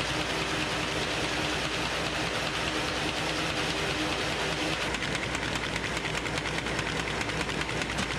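MBO buckle folder running, feeding and folding sheets of a job run with the grain: a steady motor and roller hum, joined about five seconds in by a fast, even ticking as the sheets go through.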